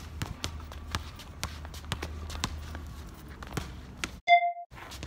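Basketball dribbles and sneaker footsteps on a hard court, as irregular knocks and scuffs over a low steady rumble. About four seconds in a short, loud beep-like tone cuts in, with the other sound dropping out around it.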